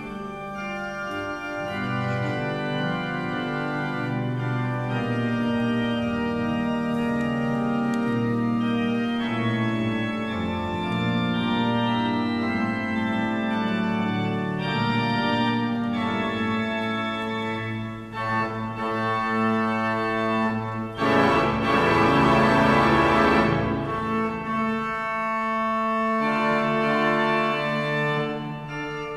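Organ music: slow, sustained chords that change every few seconds, swelling fuller and louder for a few seconds about three-quarters of the way through.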